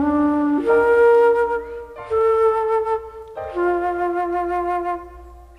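Jazz flute playing a slow melody of long held notes, each about a second, over a quiet bass. The last note fades out near the end.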